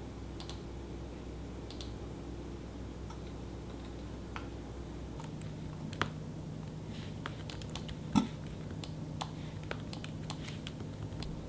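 Typing on a laptop keyboard: scattered, irregular keystroke clicks, more frequent in the second half, over a faint steady hum.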